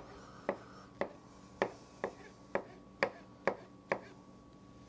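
Chef's knife chopping a portobello mushroom on a cutting board: a run of sharp knocks, about two a second, that stops about four seconds in.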